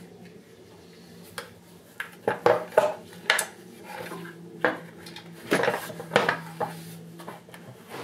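Hard plastic air box of a golf cart's gas engine knocking and clattering as it is handled and set back into place: a string of sharp clacks, irregular and roughly a second apart.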